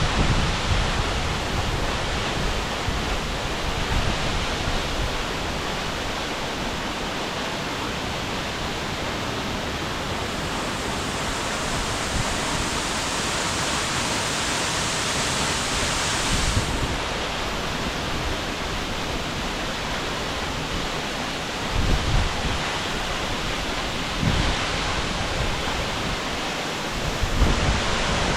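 Waterfall pouring into its plunge pool: a steady, even rush of falling water. The wind thrown off by the falls buffets the microphone in low thumps a few times near the end.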